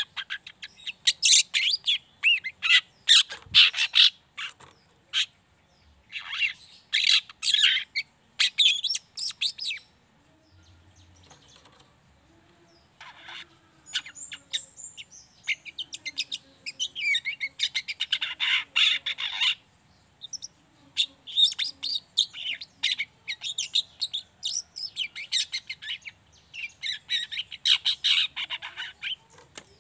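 Young long-tailed shrike (cendet) giving its rapid, high 'ngriwik' chatter in phrases a few seconds long, with a quieter lull about ten seconds in.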